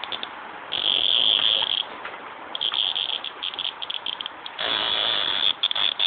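A cicada held between the fingers, buzzing loudly in harsh, stuttering bursts: a steady buzz about a second in, choppy sputters after it, and a longer, fuller buzz near the end. This is the distress squawk a cicada gives when handled.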